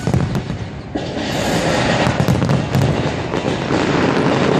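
Aerial fireworks display: many shells bursting at once, giving a dense, continuous crackling and popping over a low rumble. There is a brief dip just before a second in.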